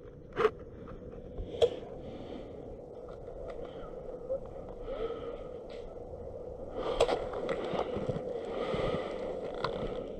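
Footsteps crunching through snow at a walking pace, with a few short sharp clicks.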